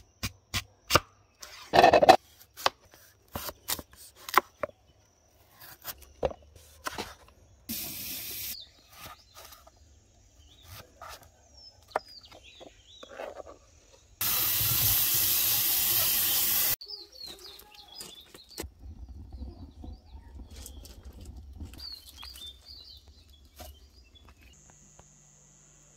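Kitchen knife cutting through a raw peeled sweet potato onto a plastic cutting board: a quick run of sharp cuts in the first few seconds, then scattered cuts, with birds chirping in the background. About halfway, a loud steady hiss lasts a little over two seconds.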